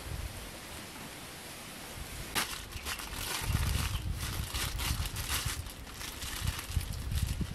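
A plastic bag of rice crinkling and rustling as it is squeezed and handled, starting about two seconds in as a run of sharp crackles, with a low rumble underneath.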